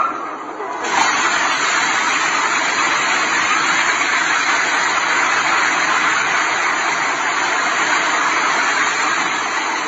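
A multi-storey apartment building collapsing: a loud, steady rush of noise from falling debris and billowing dust that starts suddenly about a second in and cuts off sharply at the end.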